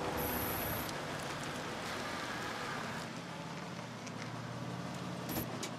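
Pickup truck rolling in and pulling up: tyre hiss on the pavement, with a low engine hum becoming clearer about three seconds in as it slows to a stop.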